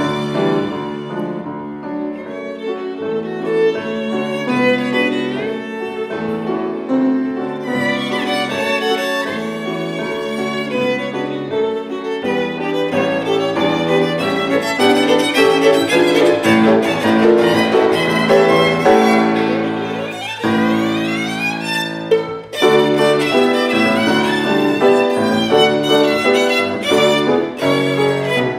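Violin and August Förster piano playing classical music together, the violin leading with quick running passages over the piano. About twenty seconds in a fast sweeping run ends in a brief break, then the music resumes strongly.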